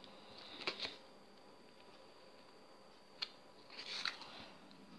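Faint scratchy swipes of a scraper drawn across a metal nail-stamping plate, clearing off the excess nail polish, twice, with a single small click between them.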